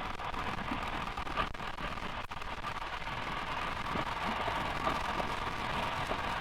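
Honda CRF450RL dual-sport motorcycle's single-cylinder four-stroke engine running at a steady cruise, mixed with gusty wind rushing over the rider's microphone.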